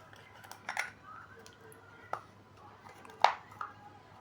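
A few sharp clicks and taps of small tools and parts being handled on a workbench, the loudest about three seconds in, over a faint steady hum.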